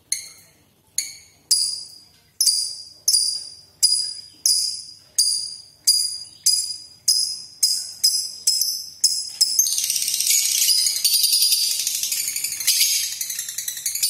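Small songbird singing: a run of sharp, high, ringing notes repeated about one and a half times a second, then, about two-thirds of the way through, a continuous fast high rattling trill.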